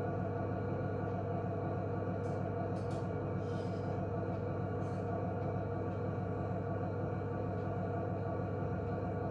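Electric potter's wheel motor humming steadily as the wheel turns, with a few faint light clicks a couple of seconds in.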